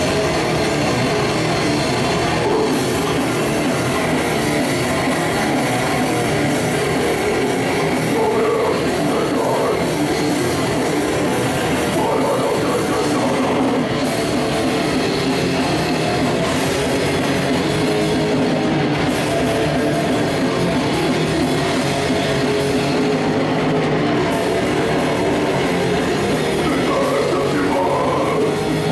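A grindcore band playing live: distorted electric guitar and bass over drums in a dense, loud, unbroken wall of sound.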